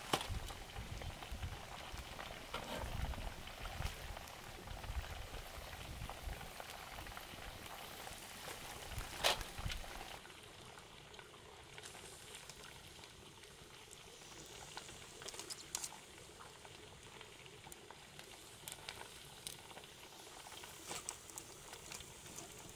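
Chicken drumsticks deep-frying in a wok of hot oil, a steady bubbling crackle with many small pops. One sharp metallic click stands out about nine seconds in, from metal tongs or a wire strainer.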